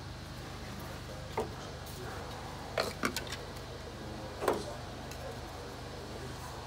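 A few light clicks and knocks as a diesel fuel filter element and its plastic cap are handled and set onto the filter housing, over a steady low hum.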